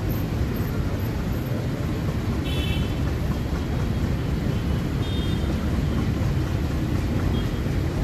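Diesel locomotive engine rumbling low and steady as the train nears the closed level crossing.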